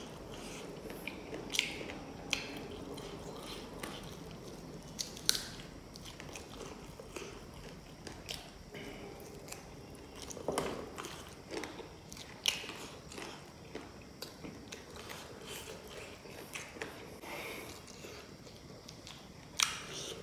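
Close-miked chewing and biting of a person eating spicy instant noodles and chicken, with sharp mouth clicks and smacks now and then.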